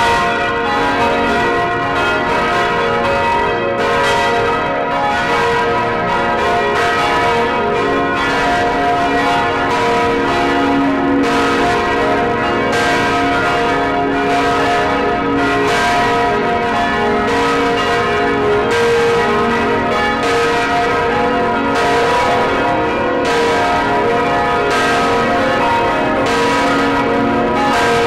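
Large swinging church bells of St. Catherine's, Gdańsk, among them the 2490 kg 'Pokój i Pojednanie' bell tuned to c, ringing close up in the belfry. Their clappers strike about once a second, and the overlapping tones build into a dense, continuous wash. They are tolling as a funeral knell.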